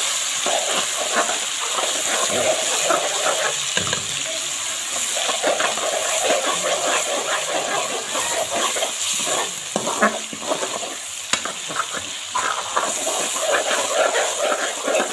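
Tomato, onion and garlic masala sizzling in oil in a metal wok on a low flame. A metal spoon stirs and scrapes through it, giving many small clicks against the pan over the steady sizzle.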